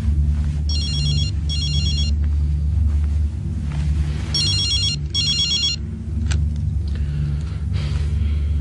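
Mobile phone ringing: a high, trilling double ring, heard twice, over a low steady hum.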